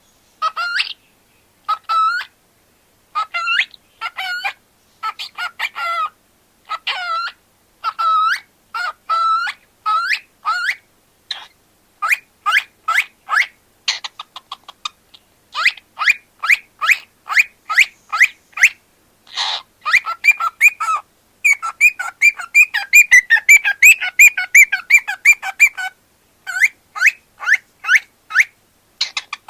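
Cockatiel chirping and whistling in short high calls, spaced about a second apart at first, then coming in faster runs from about halfway, with a dense rapid chatter a little before the end.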